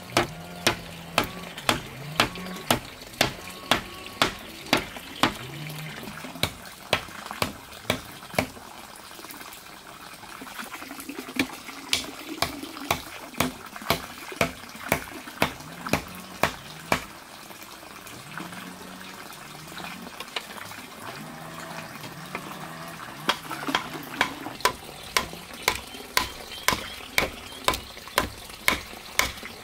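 Steady hammer blows driving stakes into the ground, about two sharp strikes a second, with a couple of short pauses.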